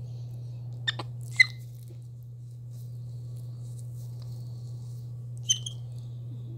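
Capuchin monkey giving short, high-pitched squeaks: a quick few about a second in and another pair near the end, over a steady low hum.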